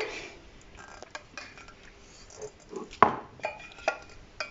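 A spatula scraping and knocking against cookware while noodles are served out, in light scattered clicks, with one sharper knock about three seconds in and a few smaller ones after it.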